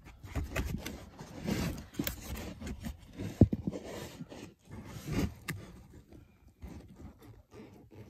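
Hands rustling and scraping as they work a wiring plug into place up behind the interior panels, with scattered small clicks and one sharp click about three and a half seconds in.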